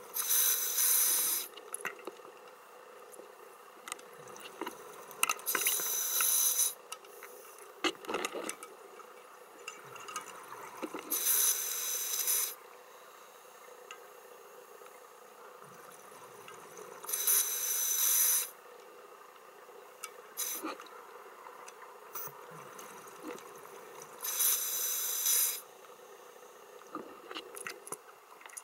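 Scuba diver's regulator underwater: exhaled bubbles rush out in five bursts of about a second each, roughly every six seconds. Between them there is a faint steady hum and a few small clicks.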